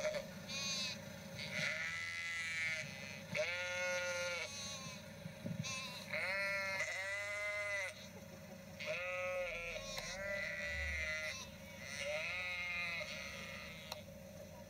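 Sheep bleating, a run of drawn-out baas coming one every second or two, over a faint steady hum.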